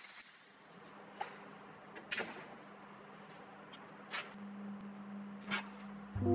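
A MIG weld arc cutting off at the start, then a handful of sharp metal clicks and clacks, spaced about a second apart, as the magnetic welding clamps are pulled off the steel tube and set down, over a faint steady hum. Music comes in at the very end.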